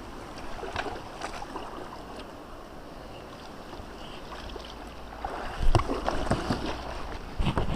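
Water splashing around a kayak on a river: a low, steady wash, then a run of louder splashes and knocks starting about five seconds in.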